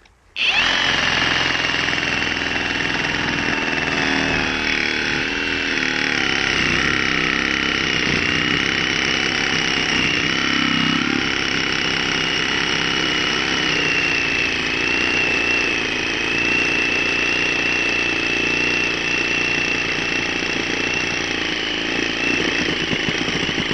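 Milwaukee M18 Fuel brushless cordless reciprocating saw starting about half a second in and running steadily under load, its heavy-duty wood-cutting blade sawing through a wet tree stump. A high motor whine wavers slightly over the steady blade noise.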